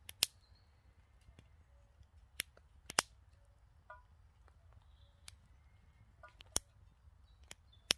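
About six sharp clicks or snaps at irregular intervals, two close together at the start.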